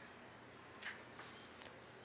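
Hampton Bay Minuet II ceiling fan running on low speed, very quiet: a faint steady motor hum with a couple of faint ticks.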